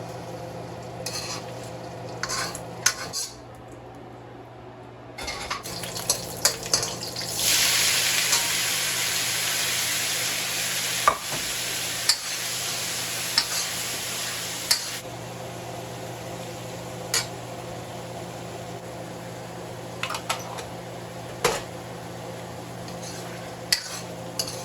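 Food stir-frying and sizzling in a pan, with a metal spatula clinking and scraping against it now and then. The sizzle swells loudest about seven seconds in and eases back about halfway through. A steady low hum runs underneath.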